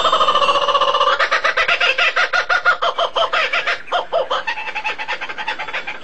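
Fowl clucking: a loud run of rapid, pitched clucks at about eight a second, trailing off about four and a half seconds in.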